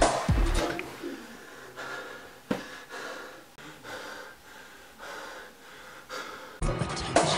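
A man gasping and breathing heavily, as if jolted awake from a nightmare. Music cuts in abruptly near the end.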